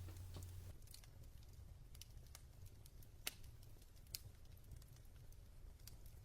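Near silence with faint, irregular clicks, a few a second, like a fireplace crackling. A low hum cuts off about a second in.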